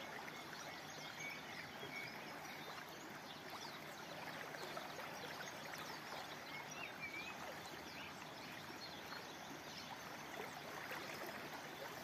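Fast-flowing river rushing over shallow riffles: a steady, even rushing of water.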